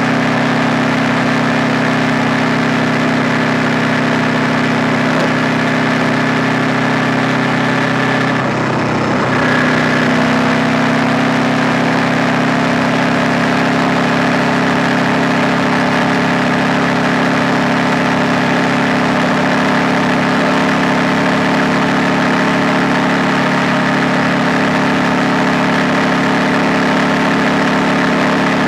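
KTM 890 Duke R's parallel-twin engine running at low, steady revs while the motorcycle is ridden slowly. About nine seconds in the pitch dips briefly, then the engine runs on a little louder.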